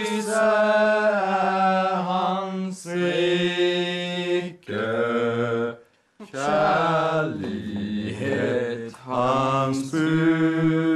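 A few voices singing a hymn unaccompanied, in slow, long-held notes, phrase by phrase with short breaks between.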